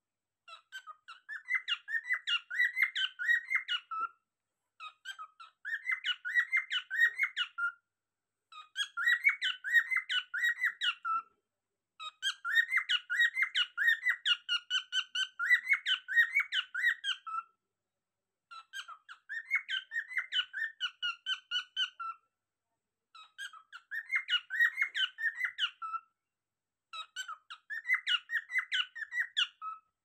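Cockatiel whistling its song: a run of quick, high notes repeated seven times, each run about three seconds long with a pause of about a second between, and one run near the middle lasting longer.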